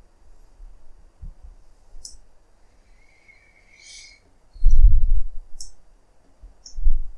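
Computer mouse clicks, about four short ones spread through, as the middle mouse button is used to orbit the view. A dull low thud about two-thirds of the way in is the loudest sound, with a smaller one near the end.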